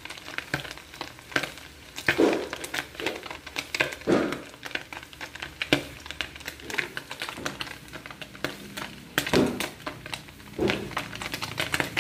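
A sardine fritter frying in hot oil in a metal wok, crackling and popping irregularly, with a few louder scrapes of a metal spoon against the pan.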